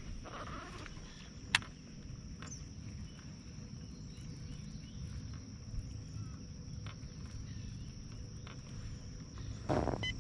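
Steady high-pitched insect drone over a low rumble of wind and water, broken by a few sharp clicks, the loudest about one and a half seconds in, and a short rustling burst near the end.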